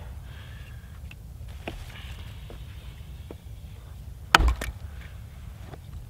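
An axe splitting a short, dry, straight-grained stick of ash into kindling, driven with the heel of the bit. One sharp crack with a quick second knock comes about four seconds in, and a few faint wooden ticks are heard around it.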